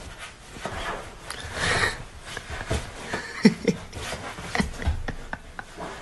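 A dog scrabbling and rubbing against fabric sofa cushions, with many small scratches and knocks and a couple of short low sounds about halfway through.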